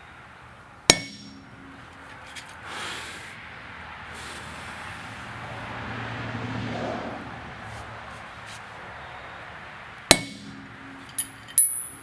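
Two single hammer blows on steel, about nine seconds apart, each a sharp clang with a high ring. Lighter metallic clinks follow near the end, and a steady low rushing noise swells and fades between the blows.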